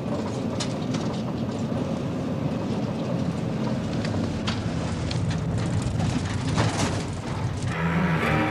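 Steady rumble of a vehicle on the move, with a few faint clicks; music comes in near the end.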